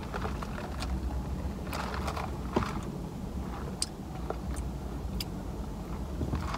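Low steady hum inside a car, with a few small clicks and mouth sounds as an iced drink is sipped from a lidded plastic cup and tasted.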